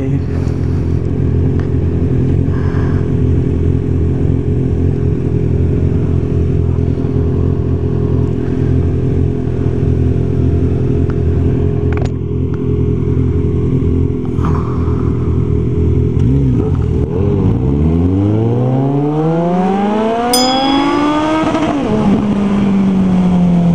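Suzuki Bandit 1250's inline-four engine through an aftermarket exhaust, idling steadily for about sixteen seconds, then revving up in one long rise as the motorcycle pulls away, with a drop in pitch at a gear change shortly before the end.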